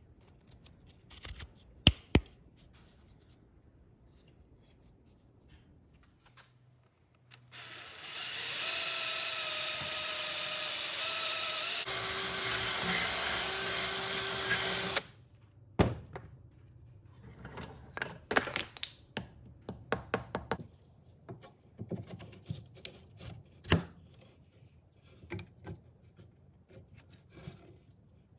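Power drill boring a hole into a hardwood cane handle, running steadily for about seven seconds with a whine from the motor, then stopping. Scattered knocks and clatter of the wooden piece being handled follow.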